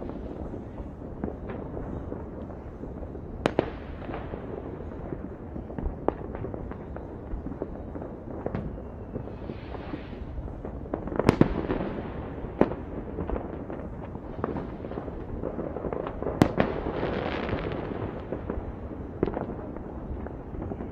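Distant fireworks and firecrackers: sharp single bangs every few seconds over a constant low rumble of far-off bursts, with swells of crackling hiss. The loudest bangs come a little past a third of the way through and about three quarters of the way through.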